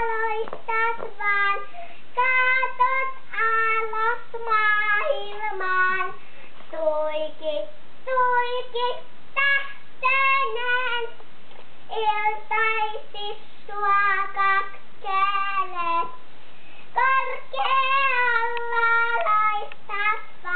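A young girl singing a song unaccompanied, in short phrases of held and sliding notes with brief pauses between them.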